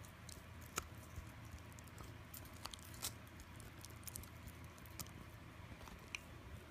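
Dog gnawing on a long rawhide chew: scattered sharp clicks and crunches of teeth on the hard chew, over a steady low hum.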